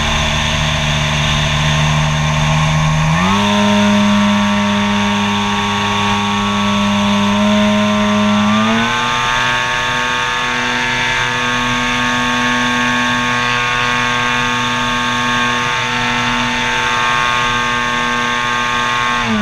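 RC model airplane's motor and pusher propeller running with a steady whine, stepping up in pitch about three seconds in and again near nine seconds as the throttle is raised, then dropping sharply right at the end as the throttle is pulled back. Wind rush from the flight sits under it.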